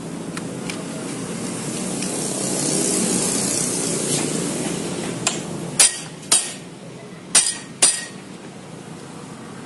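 A rushing hiss swells for a few seconds and fades, then about five sharp metal knocks come in quick succession, from hammer or tool blows on a motorcycle clutch housing.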